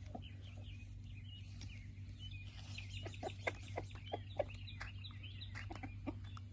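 Chickens clucking and peeping softly, with a run of sharp pecking taps from about three seconds in as they peck at blueberries.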